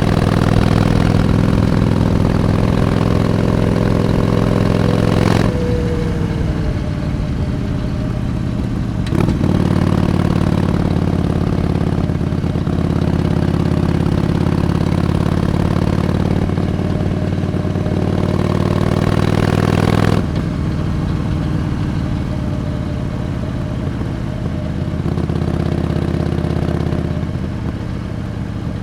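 Harley-Davidson Iron 883's air-cooled 883 cc V-twin running under way on the ride. It pulls steadily, drops off sharply about five seconds in as the throttle closes, and comes back strongly about four seconds later. It drops off again around twenty seconds in, then builds up again near the end.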